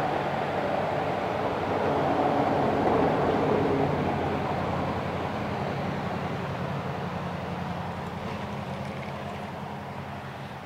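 Steady low roar of water rushing through a spillway, swelling a little a couple of seconds in and then slowly fading.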